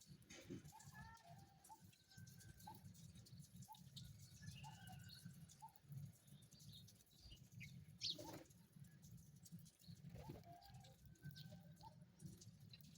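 Faint, scattered short bird chirps and calls over a low steady rumble, with one brief louder sound about eight seconds in.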